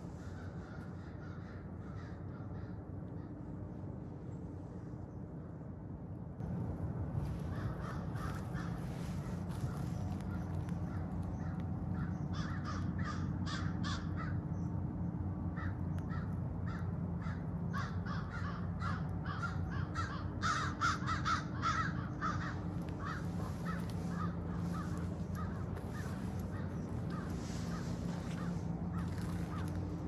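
Crows cawing repeatedly over a steady low hum. The calls begin about a quarter of the way in and are loudest a little past the middle.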